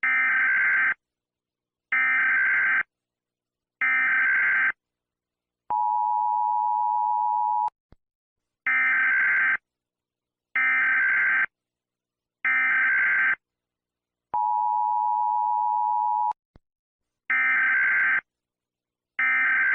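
Emergency Alert System tones: harsh one-second bursts of SAME digital header data, sent in groups of three, twice broken by the two-second two-tone EAS attention beep. Two more data bursts come near the end.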